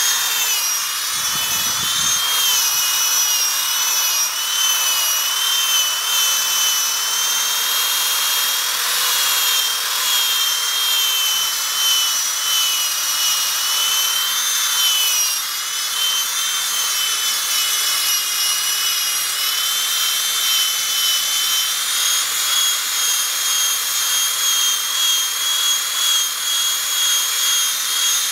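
Powerball buffer spun by a drill, polishing an emblem: a steady high-pitched motor whine whose pitch wavers a little as the pad is worked, stepping slightly higher about two-thirds of the way through.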